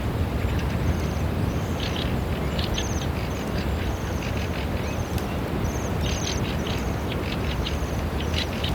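A flock of Bohemian waxwings calling: many short, high, trilling calls overlap throughout, over a steady low rumble.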